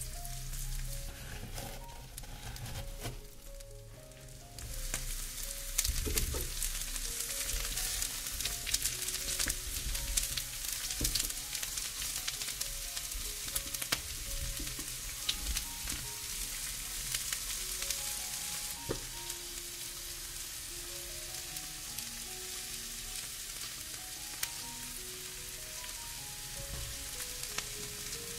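Food frying in hot oil in a pan: sizzling with many small crackles that starts suddenly about five seconds in as the food goes into the oil, over soft melodic background music.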